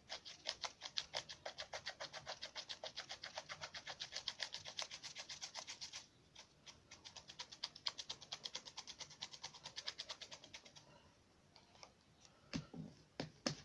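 Paintbrush scrubbing back and forth on a paper model boat, short scratchy strokes at about six a second. There are two runs, with a brief break about six seconds in, and it goes quieter for the last couple of seconds.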